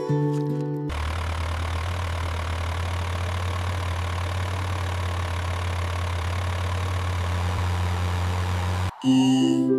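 A vehicle engine running steadily at an even pitch. It starts about a second in, after a few plucked music notes, and cuts off abruptly near the end as music returns.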